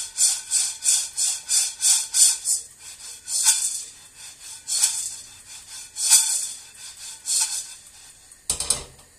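Coffee beans rattling and sliding in a frying pan as it is shaken and tossed over a gas burner: quick, even swishes about three or four a second at first, then slower single tosses. The beans are mid-roast and have begun to crackle. A knock near the end as the pan comes down on the stove grate.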